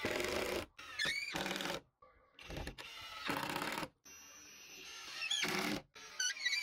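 Cordless impact driver driving screws into a laminate-faced board, its motor and hammering action running in several short bursts with pauses between.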